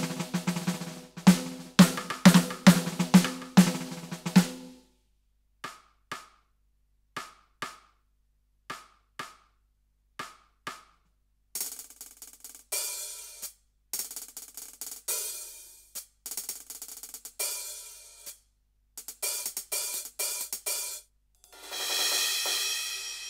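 Roland TD-17KVX V-Drums electronic drum kit sounds played pad by pad. It opens with a quick run of drum strikes that have a low pitched ring, then a handful of short, light single hits, then repeated cymbal and hi-hat strokes. Near the end a cymbal crash rings out and fades.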